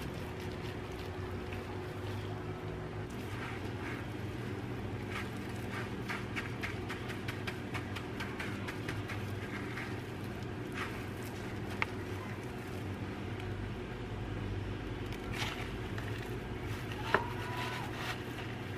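Gloved hands pressing a pork cutlet into panko breadcrumbs: soft crackles and plastic-glove rustling over a steady low background hum, with a sharper click near the end.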